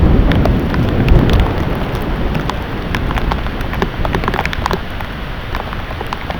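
Heavy thunderstorm rain pouring down, with many sharp drops ticking on nearby surfaces over a steady hiss. A deep low rumble at the start fades away over the first second or two.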